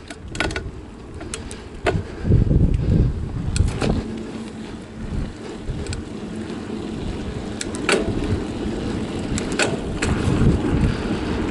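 Mountain bike ridden on asphalt through a wheelie: an uneven low rumble of tyre noise and wind on the microphone, with a faint steady hum and scattered sharp clicks and rattles from the bike.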